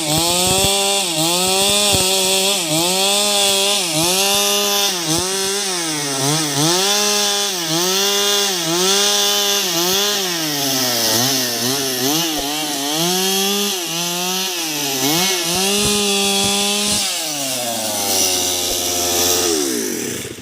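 Two-stroke chainsaw cutting wood. Its engine pitch dips and recovers about once a second as it works. Near the end the engine note falls away as the saw winds down, then the sound stops abruptly.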